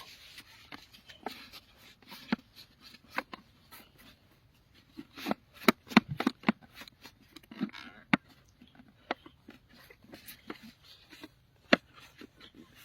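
A cloth wiping shampoo onto the inside of a pane of glass: soft rustling and rubbing broken by irregular clicks and taps as the glass is handled, with a cluster of sharper knocks about halfway through.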